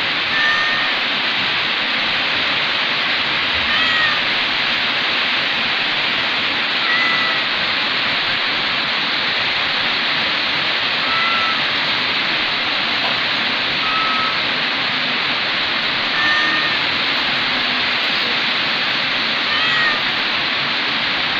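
Kitten giving short, high meows, about seven in all, one every three to four seconds, over a steady loud hiss.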